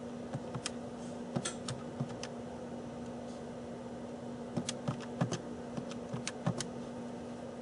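Irregular light clicks and taps in two bunches, a few per second, from small tools or keys being handled on a workbench, over a steady low hum.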